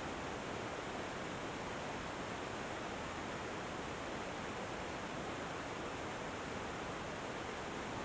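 Mountain waterfall cascading over boulders: a steady, unbroken rush of falling water.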